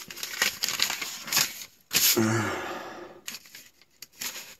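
Folded paper road map being opened out and handled, crinkling and rustling in quick irregular bursts, loudest about two seconds in.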